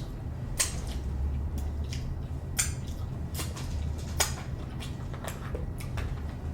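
Close-miked chewing of a saucy seafood boil: irregular wet mouth smacks and clicks, about a dozen, over a low steady hum.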